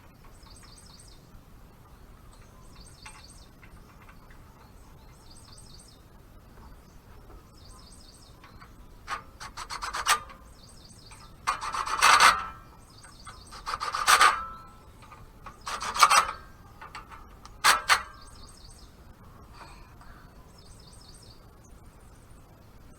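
A small bird sings a short chirping phrase over and over, every second or two. From about nine seconds in come five or six loud rasping scrapes, each under a second long, like something being rubbed or scraped hard.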